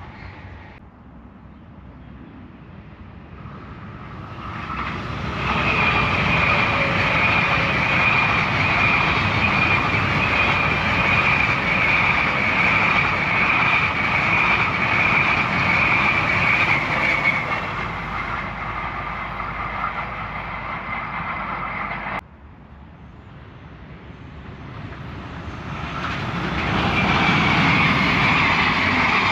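Electric trains passing: one builds up from quiet into a loud run-by with a steady high whine over rumbling noise, then fades. The sound cuts off abruptly and a second train approaches, loud again near the end.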